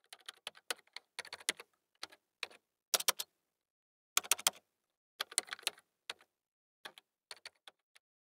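Typing sound effect: key clicks in short, irregular bursts, with gaps of up to about a second between them.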